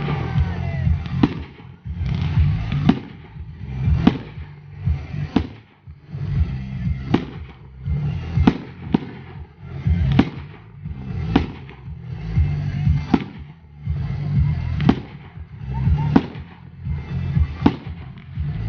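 Fireworks display: shells bursting with sharp bangs about every second, over background music.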